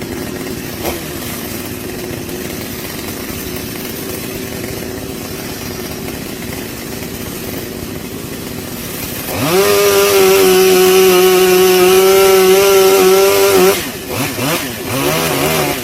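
Two-stroke chainsaw running at a steady low speed, then opened up to full throttle for about four seconds and held there, before dropping back with a couple of short blips of the throttle near the end.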